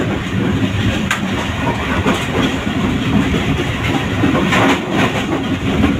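Moving passenger train heard from on board: a steady rumble of wheels on the rails, with a few sharp clacks over the rail joints.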